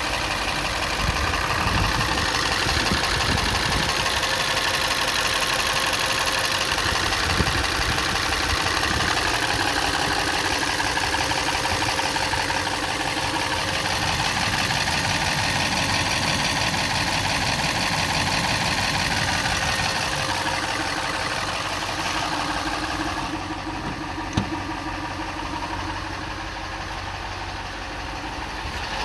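Toyota 2UZ-FE 4.7 L V8 at a steady idle with loud, rapid valvetrain ticking, one valve ticking more than the others. This follows a timing belt and cam seal job with all four camshafts removed and reinstalled. The owner suspects cam timing or cam cap position and torque. About 23 seconds in the sound turns duller and slightly quieter, with one sharp click shortly after.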